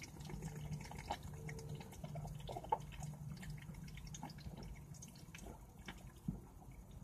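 A person chugging from a 25-ounce can of malt liquor: quiet liquid trickling and sloshing in the tipped-up can, with scattered small clicks.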